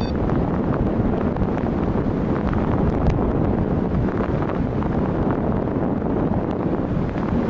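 Steady wind rushing over the microphone of a camera in free flight high above the ground, a constant low rumbling airflow noise with no break.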